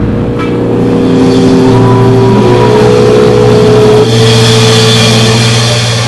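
Live rock band's distorted electric guitars and bass holding loud, sustained droning notes with a feedback whine, shifting to new notes about four seconds in, with little drumming.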